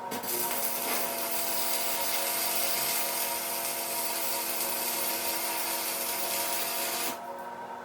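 Stick arc welder burning a welding rod: the arc's steady crackling hiss, cutting off abruptly about a second before the end, with a steady hum underneath.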